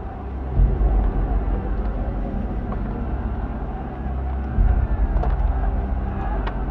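A deep, steady rumbling drone that swells about half a second in and again a little past four seconds.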